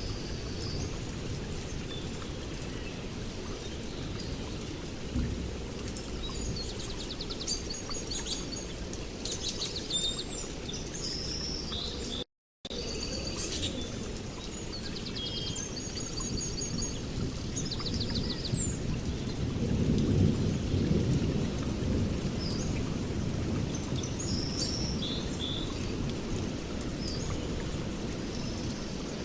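Birds chirping and trilling over a steady low rumbling noise, with a brief complete dropout about twelve seconds in.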